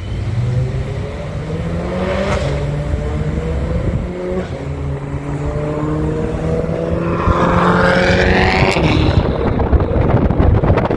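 BMW M3 E92's naturally aspirated V8 with an aftermarket exhaust running, its note climbing slowly, then rising sharply in pitch about seven seconds in as it revs or pulls away.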